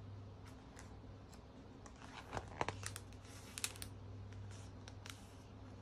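A glossy photobook page being turned by hand: a quick paper rustle and crinkle about two seconds in, with a few light clicks and taps after it, over a low steady hum.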